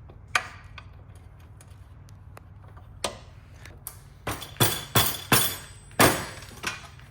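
Metal-on-metal knocks and clinks from hand tools working on an e-bike's rear wheel and brake caliper. A few isolated clicks, then a run of about seven sharp, ringing strikes in the last three seconds.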